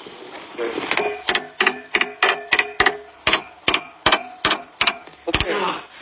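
Hammer blows on steel excavator bucket teeth, each with a bright metallic ring, coming two to three a second with a short pause midway.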